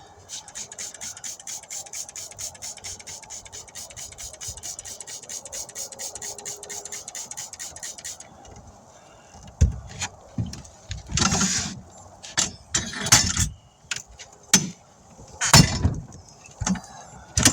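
Rapid, even clicking, about six clicks a second, for about eight seconds, then a string of irregular loud knocks and clunks from tools and the tire being handled during a tire dismount.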